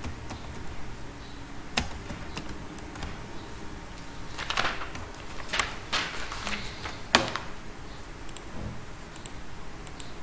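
Computer keyboard keys pressed in scattered taps and short runs, with a few sharp clicks; the loudest click comes about seven seconds in. A low steady hum runs beneath.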